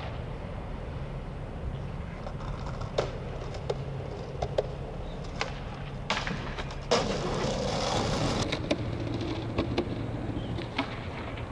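Skateboard sounds: wheels rolling on concrete, several sharp clacks of the board popping and landing, and a louder rough scraping stretch about seven seconds in, from the board grinding along a handrail.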